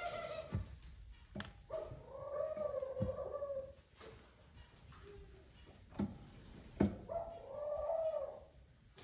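Collared dove cooing its nest call, the male calling the female to the nest. The tail of one coo comes at the start, a long coo about two seconds in and another near the end, with a few sharp knocks in between.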